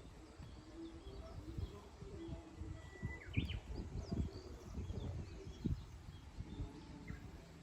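Wild birds chirping and calling outdoors, with a clear whistled note about three seconds in, over low cooing and an uneven low rumble.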